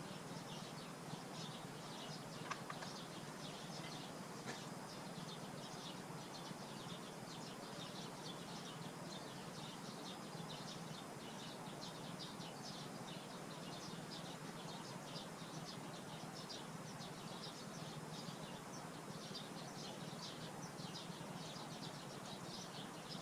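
Faint background of small birds chirping, many short irregular chirps throughout, over a low steady hum.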